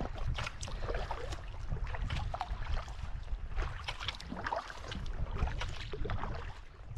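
Double-bladed kayak paddle strokes: the blades dip and splash in choppy sea water, irregular splashes one after another, over a steady low rumble of wind on the microphone.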